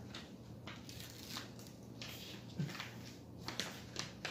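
Faint rustling of the paper cover sheet on a diamond painting canvas as it is handled and lifted, with a few short crackles.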